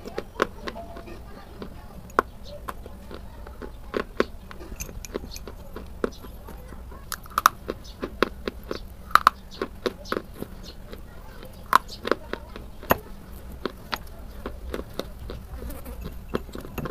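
Sticks of school chalk being bitten and crunched: a run of sharp, irregular crunches and snaps at uneven intervals, a few of them much louder than the rest.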